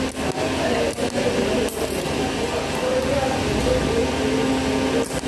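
Argon arc spot welder running with a steady electrical hum and buzz, broken by a few short gaps.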